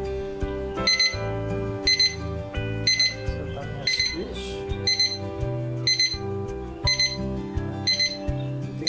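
A YS-382 three-group digital film-processing timer's alarm beeping in short high-pitched clusters about once a second, starting about a second in, as its countdown runs out. Soft background music runs underneath.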